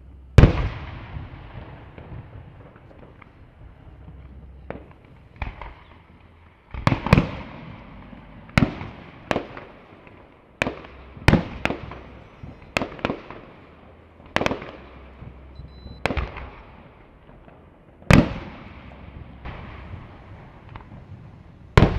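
Fireworks display: irregularly spaced sharp bangs from bursting fireworks, each trailing off in an echo, the loudest about half a second in and again near the end.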